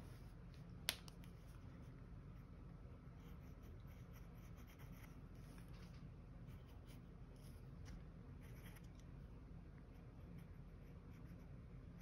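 Fine-tip pen scratching lightly across sketchbook paper in short strokes, over a faint low hum, with one sharp click about a second in.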